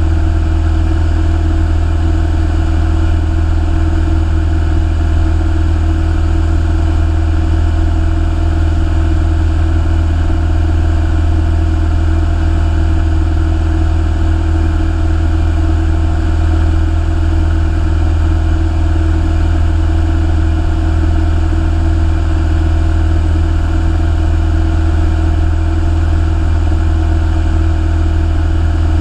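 Piston engine and propeller of a single-engine light aircraft droning steadily in flight, heard inside the cockpit.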